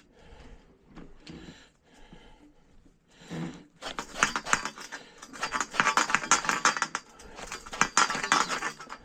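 Pipe being cut by hand for a cold-water connection: a few faint handling clicks, then from about four seconds in a run of rapid, rasping cutting strokes.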